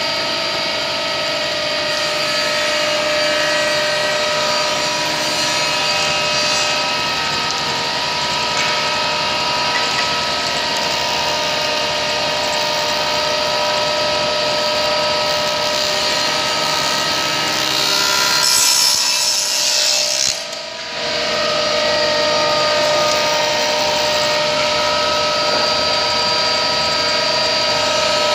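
Woodworking power machine running steadily while cutting wood, a motor hum under a continuous rasping noise. About two-thirds of the way through the cutting turns harsher, then drops away for a moment before carrying on.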